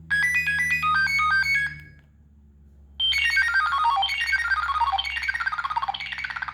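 Preloaded polyphonic ringtone of a Nokia 6015i phone playing through its small loudspeaker: a short bright melody, a pause of about a second, then several quick descending runs of notes.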